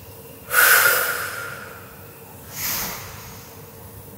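A woman breathing deeply to recover after exertion. A long, loud breath starts about half a second in and fades slowly, and a shorter, quieter breath follows about two and a half seconds in.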